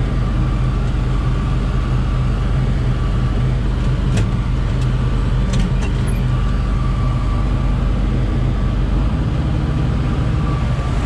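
Tractor engine running steadily under PTO load, heard from inside the cab, as a forage wagon's conveyor and beaters unload chopped alfalfa into a silage bagger. A thin steady whine runs over the engine, and the low hum shifts slightly about nine seconds in.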